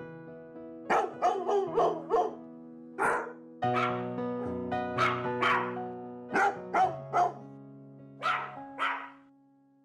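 Music of sustained, held chords with short dog barks sounding in quick rhythmic groups over it, like a barked melody. Everything fades out near the end.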